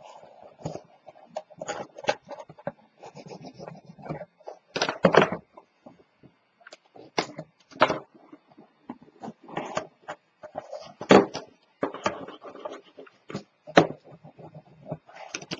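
Cardstock box and paper strips being handled on a cutting mat: irregular taps, knocks and rubbing of paper as the strips are pressed and burnished down along the box's edges with fingers and a bone folder. Sharper knocks come about five seconds in and again about eleven seconds in.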